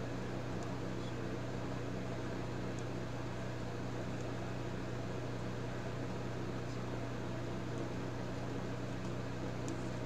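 Steady low hum over an even hiss, unchanging throughout, with a few faint ticks.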